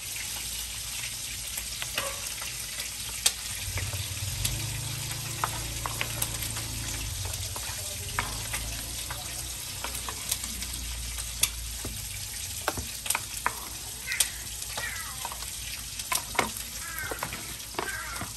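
A metal spoon scraping and tapping on a wooden cutting board and a plastic tub as chopped fried pork is scooped into raw tuna kilawin and mixed. It makes scattered sharp clicks over a steady background hiss.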